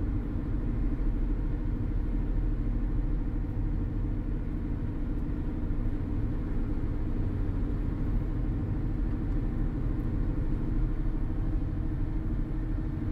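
Steady low road and engine rumble from inside a car cruising at highway speed, with no sudden events.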